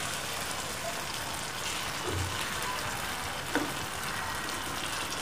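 Thick rice-and-chicken batter sizzling steadily in hot oil in a nonstick frying pan as a steel ladle spreads it out, with one light click about three and a half seconds in.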